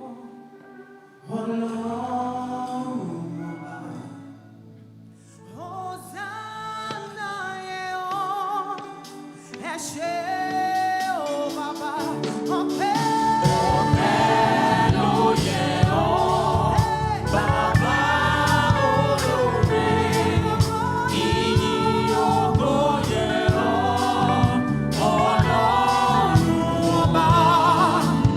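Live gospel praise-and-worship music: a lead singer and backing choir with a band. It opens softly with sustained chords and voices, then builds about twelve seconds in to the full band with drums and bass under the singing.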